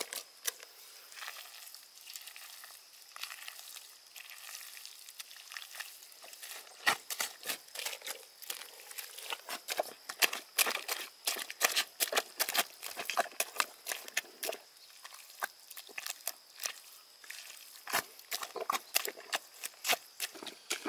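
Rubber boots treading and kneading wet soil mixed with straw, with irregular squelches and sucking as the feet sink and pull out of the mud. Sparse for the first few seconds, then in quick succession through the middle and again near the end.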